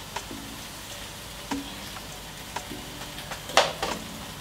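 Minced beef frying in a wok with butter: a steady sizzle, with a few sharp taps of a utensil against the pan, the loudest near the end.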